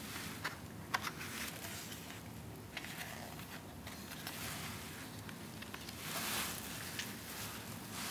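Pages of a softcover photobook being turned by hand: soft paper rustles, with two light ticks about half a second and a second in, and a longer, louder rustle of a page turning over a little after six seconds.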